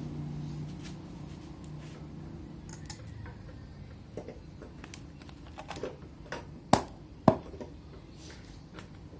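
Small metal clicks and taps of tools and fork parts being handled during front fork seal fitting, with two sharper knocks about half a second apart near the end. A low steady hum fades out in the first few seconds.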